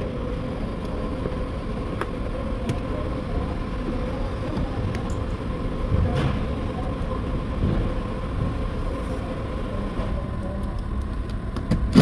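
Steady low rumble of a workshop's background machinery, with a faint constant hum and a few light clicks and knocks.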